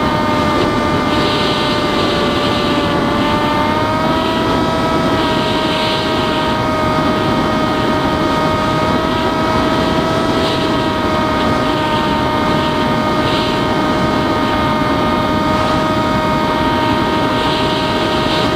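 Electric motor and propeller of an FT-Explorer foam FPV plane, picked up by its onboard camera in flight: a steady whine of several held tones over a rush of wind on the microphone. The pitch rises slightly about three to four seconds in.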